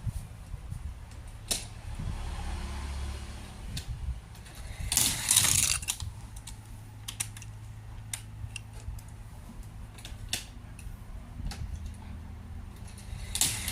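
Hot Wheels die-cast toy cars clicking and clattering on a toy track during a test run, with a louder rattling stretch about five seconds in.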